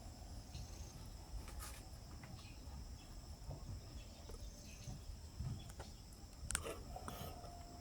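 Quiet ambience of a steady high insect trill, with a few faint, brief bird chirps and clicks scattered through it, the clearest about six and a half seconds in.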